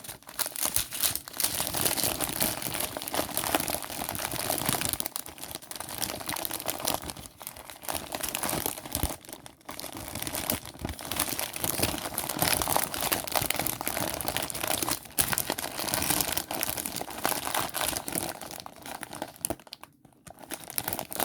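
Small plastic bags of diamond painting drills being handled and sorted through, crinkling almost continuously with a couple of brief pauses.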